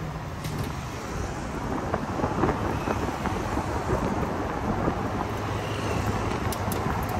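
Steady low rumble of a car on the move, road and engine noise, with wind on the microphone; a low steady hum comes up near the end.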